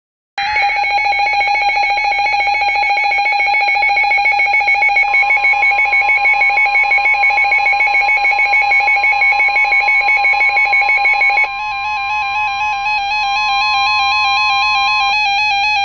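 Electronic emergency alert signal tones. A loud, rapidly pulsing two-pitch tone starts about half a second in and cuts off about eleven seconds in. A steady single tone joins about five seconds in and stops near the end. After the cut, warbling tones carry on.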